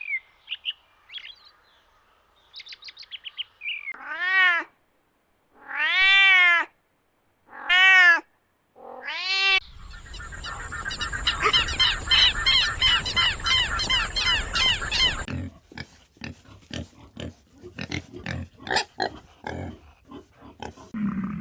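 A succession of animal calls. First short chirps, then four drawn-out calls that each rise and fall in pitch, then a rapid string of repeated calls for about five seconds, then scattered sharp clicks.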